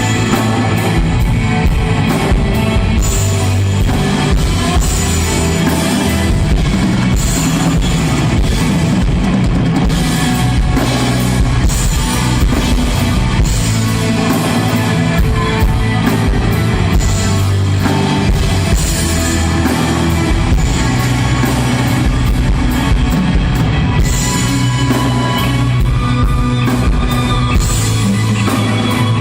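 Rock band playing live with distorted electric guitar and a drum kit, loud and steady throughout.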